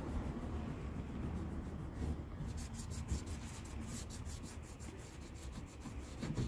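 Scraping and rubbing as old, melted rubber weatherstrip residue is cleaned off a car window channel, with a run of quick, even strokes, about five a second, in the middle, over a steady low rumble.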